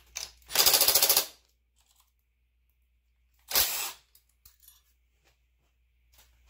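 Two short bursts of rapid mechanical rattling during work on an engine: a longer one just after the start and a shorter one about halfway through.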